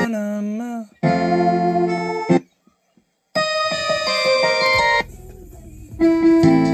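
Electronic keyboard-style Christmas carol music from a Mr. Christmas Lights and Sounds of Christmas player. It cuts off and starts again several times as the songs are skipped through, with a near-silent gap of about a second halfway through.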